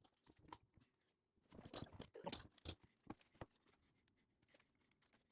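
Faint handling sounds: a quick run of small clicks and scraping rustles, loudest from about a second and a half in to about three and a half seconds in.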